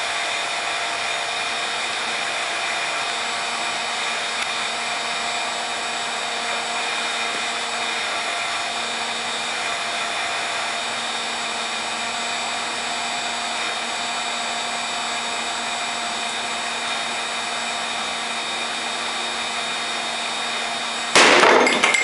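A 1500-watt heat gun runs with a steady fan hiss and faint whine, heating a Nintendo DS Lite lithium polymer cell. About 21 seconds in, the overheated, venting cell goes into thermal runaway and explodes in one sharp, loud bang, followed by a brief crackle of flying pieces.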